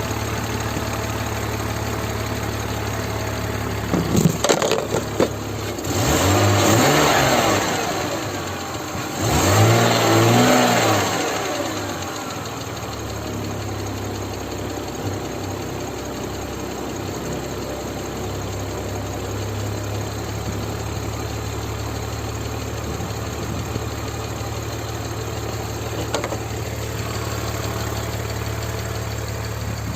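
BMW E46 325i's 2.5-litre straight-six engine idling steadily. A few short bursts come about four seconds in, then it is revved up twice and drops back to idle.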